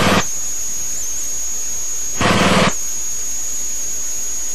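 A single steady high-pitched whine with the boat's engine noise cut out. About two seconds in, a half-second burst of loud engine noise breaks in, then the whine resumes.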